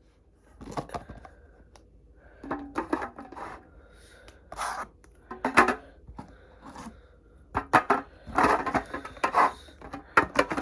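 Small plastic slime containers being handled and set down into a storage box, giving irregular clicks, knocks and light clattering with short scrapes.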